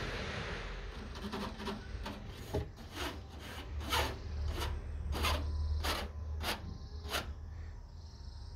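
A short hiss from the kitten at the start, then fingers scratching a wire window screen in a run of short strokes, one every half second or so, stopping about seven seconds in.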